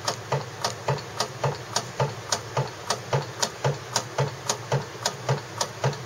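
Hand-cranked rotary microtome cutting a ribbon of paraffin sections, its mechanism clicking in a steady rhythm of about three to four clicks a second, with a dull knock on every second click.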